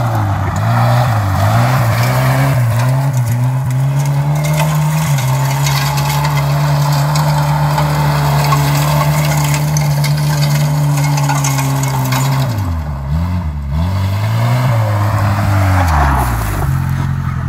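1988 Suzuki Vitara's engine revving hard as the 4x4 spins donuts on loose gravel, with gravel hissing from the spinning tyres. The revs rise and fall for the first few seconds, hold high and steady for about seven seconds, dip and surge a few more times, then drop to a lower steady note near the end.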